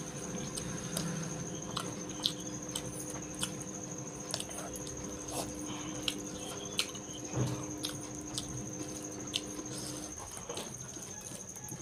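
Close-miked eating by hand: chewing with sharp wet mouth clicks and smacks every second or so while fingers mix rice and curry on a steel plate. A steady high whine and a low hum run underneath; the hum stops near the end.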